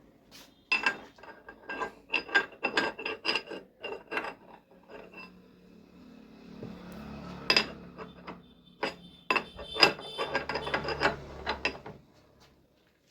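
Metal parts clinking and knocking against each other as they are handled, a run of irregular sharp metallic knocks that ring briefly, in two clusters.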